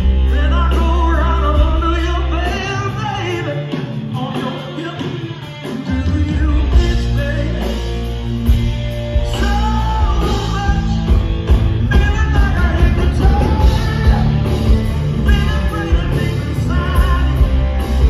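Live rock band playing: a singer's voice over electric guitar and drums. The low end drops out for a few seconds about two and a half seconds in, and the full band comes back in around six seconds.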